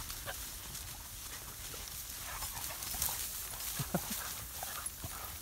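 Two bulldogs, one an Alapaha bulldog, bounding through standing wheat: dry stalks rustling against them, with wind rumbling on the microphone. A few short dog sounds come about four seconds in.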